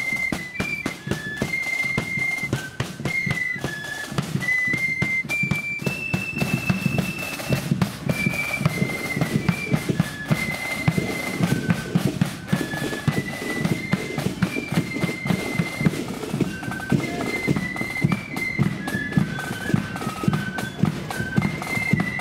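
Marching flute band playing a tune in unison, the flutes carrying a high stepping melody over fast, dense drumming.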